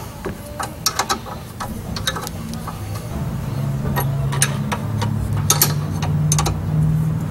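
Hand ratchet wrench clicking and metal tools clinking while the rear brake caliper bolts are broken loose. Sharp, irregular clicks. A low steady hum comes in about three seconds in and grows louder.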